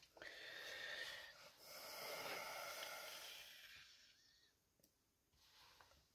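A man's faint breathing while he smokes a tobacco pipe: two long, airy breaths, the second about two seconds long, then near silence.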